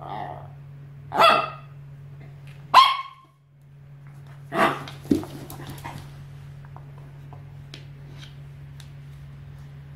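Mini chihuahua giving short, sharp play barks at a bigger dog, four of them in the first five seconds or so, then only a few faint ticks. A steady low hum runs underneath.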